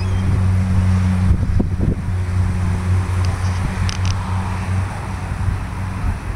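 A steady low mechanical hum with wind buffeting the microphone in uneven low gusts.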